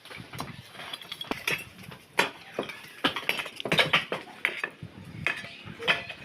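Demolition work: irregular sharp clinks and knocks of tools and debris, coming thickest in the middle.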